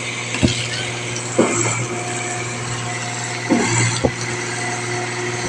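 Concrete pump running while a cleaning ball is passed through its pipeline: a steady engine hum with a sharp knock every one to two seconds.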